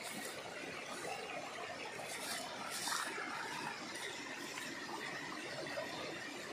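Shallow rocky stream running over stones, with a couple of brief splashes from wading steps about two and three seconds in.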